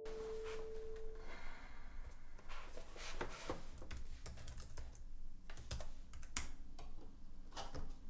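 Typing on a MacBook laptop keyboard: quick, irregular key clicks. A held ringing tone fades out about a second in.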